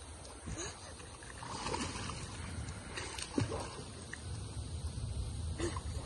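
Swimming splashes in a pool: a young child kicking and paddling, the water splashing unevenly several times over a low steady rumble.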